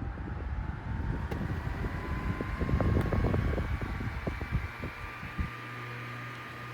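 Lakewood 9-inch oscillating table fan (model 900-A) running, its motor whine rising steadily in pitch as it speeds up. A gusty low rumble of air buffeting the microphone stops abruptly about five and a half seconds in, leaving a steady low hum.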